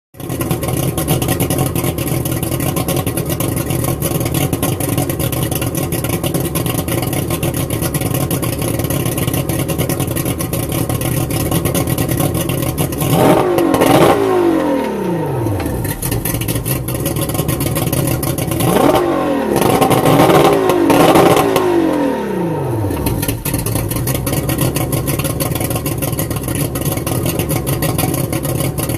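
Mariner Magnum 225 EFI outboard, a 3.0-litre V6 two-stroke, idling out of the water on a garden-hose flush attachment. About halfway through it is revved once, the pitch rising and falling straight back. A few seconds later it is revved again, longer, holding briefly before dropping back to idle.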